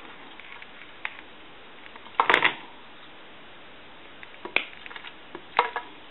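A crimping tool being worked on a new spade connector on a telephone handset cord wire: scattered small clicks and clacks, with a louder brief noisy sound about two seconds in.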